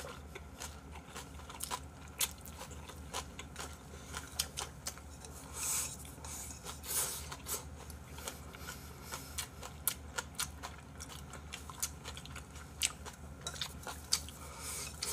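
Close-miked eating: chewing, with chopsticks clicking against a bowl again and again. There are two short hissing sounds about six and seven seconds in.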